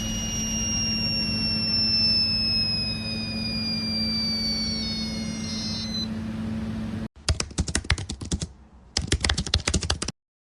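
A steady hum with two faint high tones slowly falling in pitch. About seven seconds in it cuts off suddenly, followed by two short bursts of rapid clicking that stop abruptly.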